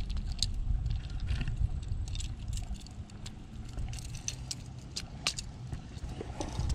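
Light metallic clicks and jingles of a Whopper Plopper lure's treble hooks being handled as the lure is worked free of a bass's mouth, over a steady low rumble.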